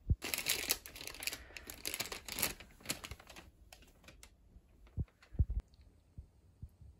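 Crinkling, rustling handling noise for about three and a half seconds, then a few scattered light clicks and soft thumps.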